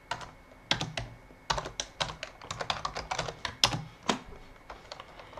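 Typing on a computer keyboard: a quick, irregular run of keystroke clicks, densest in the middle and thinning out near the end.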